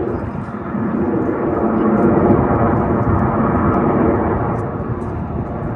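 Jet engines of an aerobatic formation flying overhead: a continuous deep rumble that swells about two seconds in and eases off near the end.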